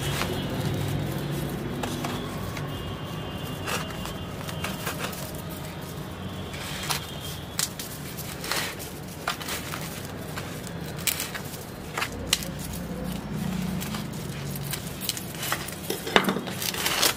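Hands working and breaking up packed potting soil in a plastic flower pot to free a root ball, with scattered small clicks, crunches and knocks of soil and pot wall, a cluster of sharper knocks near the end.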